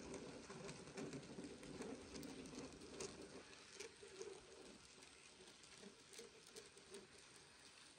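Faint, light irregular clicking and rattling of an N gauge model freight train's wagons rolling past on the track, over a low hum. It fades after about five seconds as the brake van goes by.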